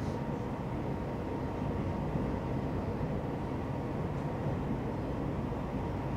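Steady low rumble of a Taiwan Railway train running between stations, heard from inside the carriage, with a faint steady whine above it.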